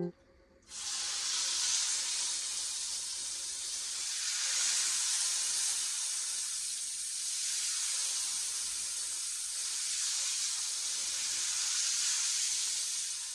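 Seasoned meat frying in a lightly oiled pan: a steady sizzle that starts suddenly less than a second in.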